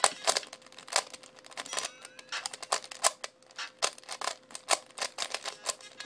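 Rubik's cube layers being turned fast in a speedsolve: quick, irregular plastic clicks and clacks, several a second.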